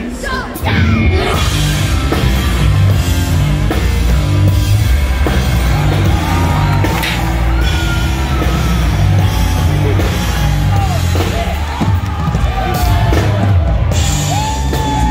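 Live rock band with electric guitars and a drum kit, heard loud through the PA. The full band comes in about a second in, and from about halfway through a male voice sings and yells over it in long held notes.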